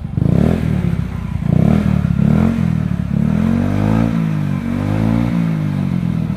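Yamaha Mio scooter's single-cylinder four-stroke engine running through an F2Racing standard-racing aftermarket exhaust with end muffler: a few short throttle blips, then two longer revs whose pitch rises and falls before it drops back toward idle.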